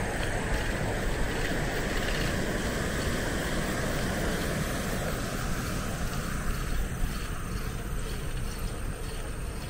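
Riding noise from a mamachari bicycle: wind rumbling on the microphone and tyres rolling on the road, steady throughout, with a higher hiss that fades out about halfway.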